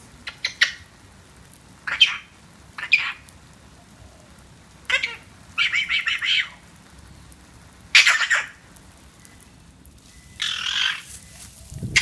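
Male Eclectus parrot chattering to himself in short squawks and mumbled, half-formed sounds, several seconds apart, including a quick string of notes about halfway through. This is the drowsy, trance-like chatter of a parrot enjoying a shower.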